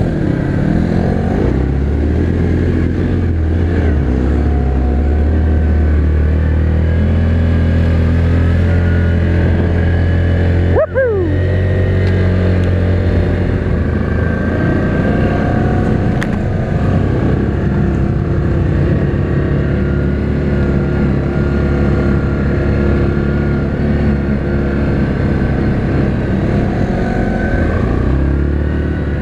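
Yamaha Grizzly 700 ATV engine running steadily on the trail, its pitch wavering a little with the throttle, with a brief drop in level about eleven seconds in.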